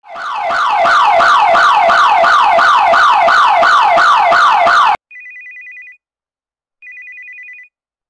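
Burglar alarm siren, triggered by an intruder, sounding loudly in a fast wavering wail of about three sweeps a second, then cutting off suddenly about five seconds in. A mobile phone then rings twice with a short trilling electronic ringtone: the alarm system calling the owner.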